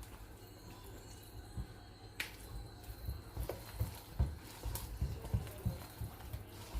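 A spoon stirring a thick yogurt-and-spice marinade in a bowl: irregular soft knocks, with a few sharp clicks of the spoon against the bowl.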